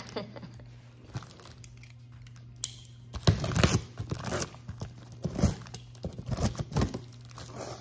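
Packing tape being torn off a cardboard shipping box: a few small clicks and rustles, then from about three seconds in several short ripping pulls as the box is opened, over a faint steady low hum.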